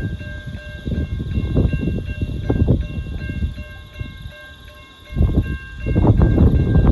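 Wind gusting on the microphone in uneven low buffets, easing about four seconds in and picking up again near the end. Faint steady high ringing tones repeat about three times a second underneath.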